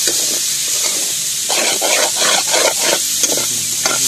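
Chopped meat sizzling in a hot black wok, dry-fried without liquid, while a metal ladle stirs and scrapes it: a steady high hiss with a run of scraping strokes in the middle and two sharp clicks near the end.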